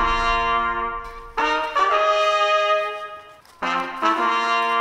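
Brass fanfare: trumpets playing held chords in short phrases, each fading before the next begins, about 1.4 s and 3.6 s in.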